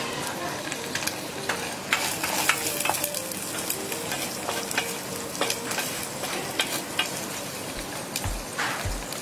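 Mukene (silver fish) frying and sizzling in hot oil in a pan, stirred with a utensil that clicks and scrapes against the pan every so often.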